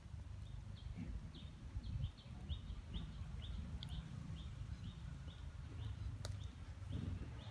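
Short high chirps repeating two to three times a second, starting about a second in, over a steady low rumble.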